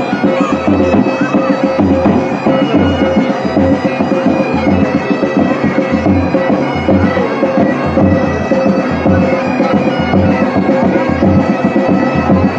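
Band music: reed wind instruments over a steady drone, playing a melody above a regular drumbeat.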